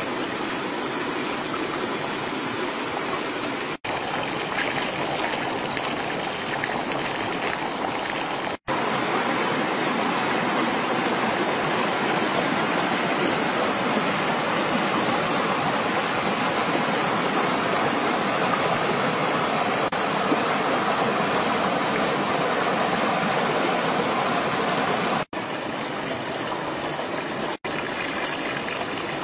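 River water rushing over rocks, a steady noise that is louder through the middle part and broken by brief gaps at edits. At the start and near the end it mixes with fish frying in bubbling oil in a pan.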